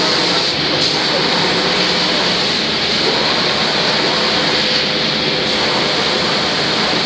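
Steady rushing noise of an automatic door spraying machine running, with a faint steady tone under it.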